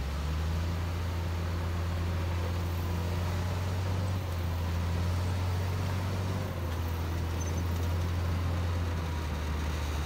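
Komatsu D53P bulldozer's diesel engine running steadily, a low even drone with small dips in level about four and six and a half seconds in.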